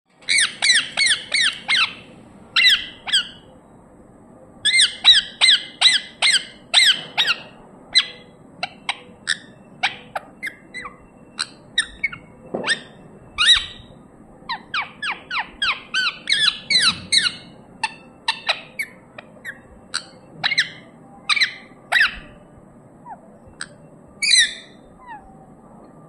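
Rose-ringed parakeet (Indian ringneck) squawking: short, shrill calls in quick runs of several, about five a second, broken by brief pauses.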